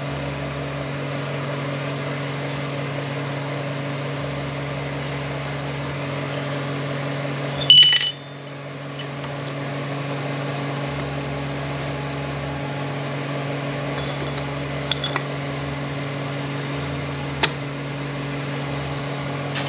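Steady mechanical hum of shop equipment, with one sharp ringing metal clink about eight seconds in and a few light clicks near the end.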